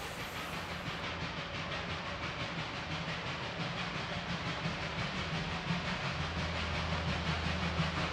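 Narrow-gauge Puffing Billy steam locomotive working toward the camera out of sight behind trees, its exhaust beats coming in a fast, steady rhythm over a hiss of steam; a low drone joins about six seconds in.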